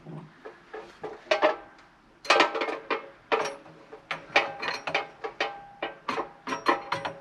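Irregular metal clinks and knocks with short ringing, several clusters a second, from a Stihl MS 261 chainsaw being handled and weighed.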